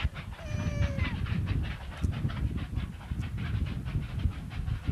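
Steam-hauled train running past with a rapid, even beat of short strokes, about seven a second. A short cry that falls in pitch is heard near the start.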